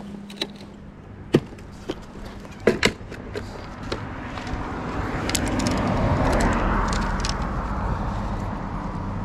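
A car passing on the road, its noise swelling over a few seconds and easing off near the end. Before it, a few sharp clicks and knocks of gear being handled.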